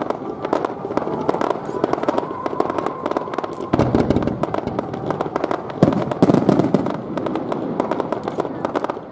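Fireworks going off over the water: a continuous dense crackle of popping stars, with heavier booms about four seconds in and again around six seconds.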